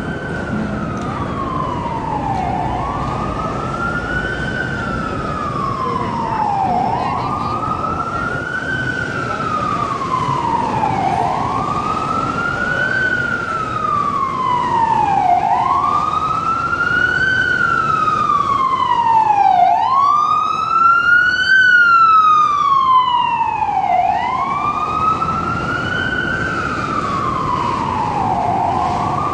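Emergency vehicle siren on a slow wail, its pitch rising quickly and falling more slowly about once every four seconds. It grows louder to a peak about two-thirds of the way in, then eases. Steady city traffic noise runs underneath.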